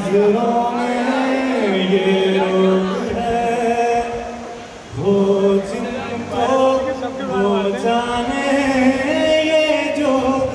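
A man singing unaccompanied into a microphone through a PA, holding long drawn-out notes, with a short pause for breath just before halfway through.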